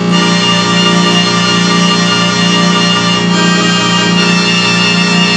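ARP Omni 1 string synthesizer playing a held chord with all its voice switches on, the strings and synth sections sounding together. The notes shift about three seconds in.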